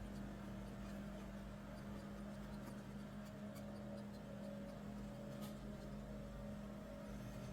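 Steady low hum of a vehicle's engine running, with a few faint clicks and taps.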